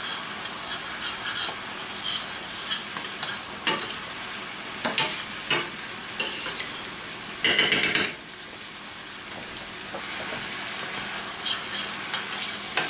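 Wine sizzling and bubbling in a hot frying pan while a utensil scrapes and stirs along the pan bottom in short strokes, deglazing the browned bits. One louder scrape comes about seven and a half seconds in, after which the sizzle goes on more quietly.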